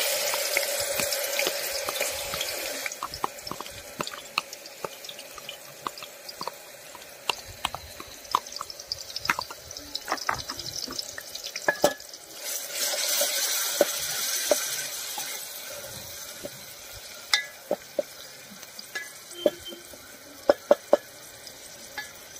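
Chopped onions and paste tipped into hot oil in an aluminium pot hiss loudly, then a wooden spatula stirs them, knocking and scraping against the pot as they fry. A second loud spell of sizzling comes about 12 seconds in.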